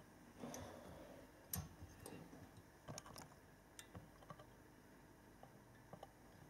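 Near silence with faint, scattered clicks and light taps from a 1:200 model airliner being handled and shifted on a glass tabletop, most of them in the first few seconds.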